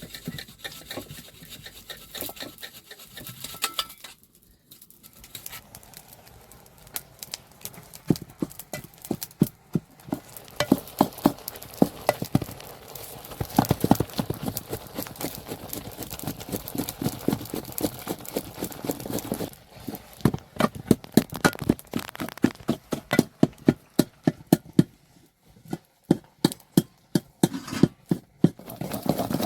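Runs of quick, sharp knocks or taps, several a second, broken by short pauses.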